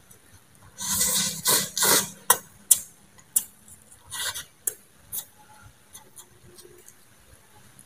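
A person slurping noodles in a hissing burst about a second in, then chewing with sharp wet clicks and smacks of the mouth, close to the microphone.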